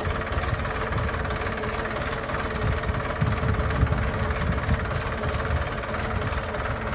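Tractor engine running steadily, with a low rumble and an even hum, while it pulls a tine cultivator through the soil between crop rows.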